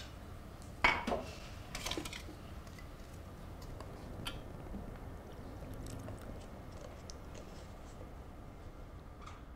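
Pour-over coffee being made: a sharp clink of ceramic and glass just under a second in, more clattering around two seconds, then scattered light taps and clicks over a low steady room hum.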